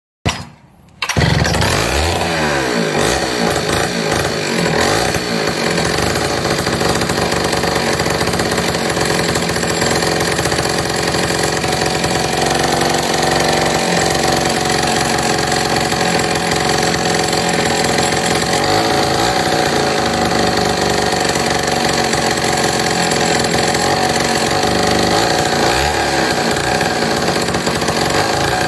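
Freshly rebuilt Poulan Super 31 two-stroke chainsaw engine running loud, revved up and down a few times in the first seconds, then running steadily with a couple more brief revs. Per the uploader, it has good compression and sounds strong.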